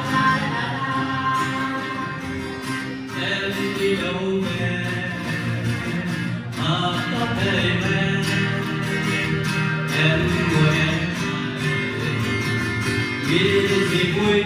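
Vietnamese song: singing over a band accompaniment with guitar, played at a steady level.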